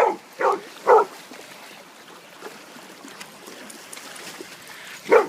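A dog barking: three sharp barks in quick succession, then a fourth near the end, over a steady background hiss.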